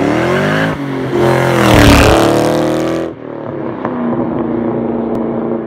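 A sports car's engine running at high revs as it approaches and passes fast, its pitch swinging up and then dropping as it goes by. About three seconds in the sound cuts off suddenly, and a quieter, steady engine note follows.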